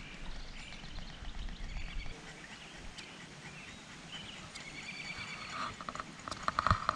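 Quiet river ambience outdoors, with faint short bird chirps and calls. A brief patch of louder crackling noise comes near the end.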